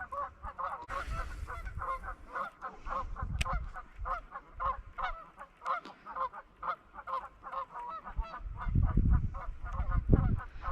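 A flock of geese honking, many short calls overlapping in quick succession throughout. Low rumbling on the microphone rises in the last couple of seconds.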